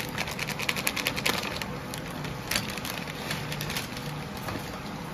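A plastic bag crinkling and rustling as grated cheese is shaken out of it into a bowl. There is a dense crackle for about the first second and a half, then sparser crackles.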